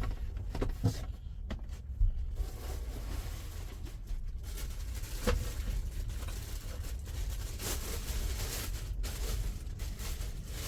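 Faint rustling and a few light knocks over a steady low rumble: handling noise.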